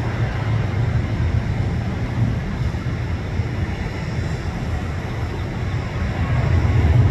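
Boeing 737's twin turbofan engines at takeoff power on the takeoff roll, a steady low roar that grows louder near the end.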